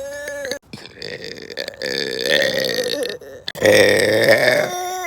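A person burping again and again: several long, drawn-out burps, the loudest about four seconds in.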